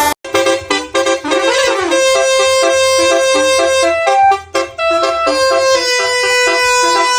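Bus telolet horn playing a quick melody of short, brassy notes, with a few notes held longer. It breaks off briefly just after the start.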